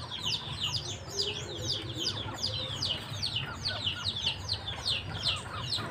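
A brood of chicks peeping without pause: quick falling chirps, several a second, with faint clucking from a hen beneath them.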